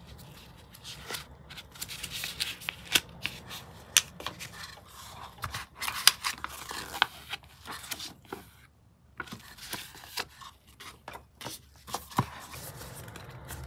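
Paper leaflet and cardboard CPU box being handled by gloved hands: irregular rustling, scraping and light taps of paper and card, with one sharper tap near the end.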